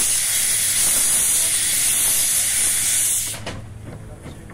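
Steam hissing loudly and steadily from the low front end of the narrow-gauge saddle-tank steam locomotive Irish Mail, as from open cylinder drain cocks. The hiss cuts off sharply about three seconds in, leaving faint clanks.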